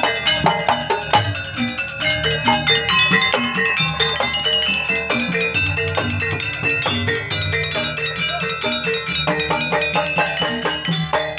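Live Javanese gamelan playing a jaranan campursari gending: a kendang hand drum keeps a steady beat under fast, repeating strikes on saron metallophones and bonang pot gongs, with hanging gongs. It is miked and played through a PA sound system.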